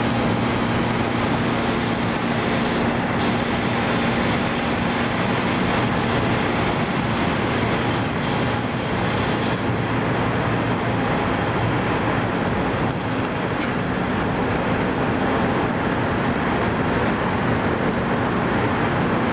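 Car interior at speed: a steady rush of road and wind noise with a constant low engine hum.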